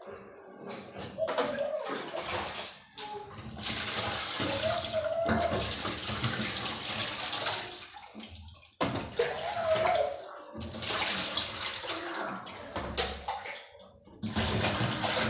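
Tap water running and splashing into a stainless-steel sink as a plastic container is rinsed. The flow cuts off briefly a few times and starts again.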